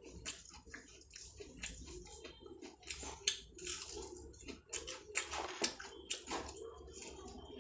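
Wet squishing and smacking of rice and curry being eaten, with many short clicks.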